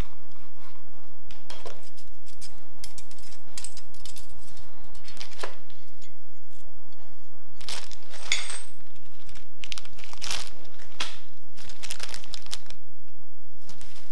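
Plastic packaging crinkling and rustling in short, irregular bursts as parts are handled: a small plastic bag of hardware and plastic film wrapped around a metal pipe.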